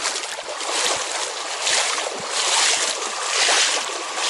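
Rushing river water, a steady hiss that swells and fades about once a second.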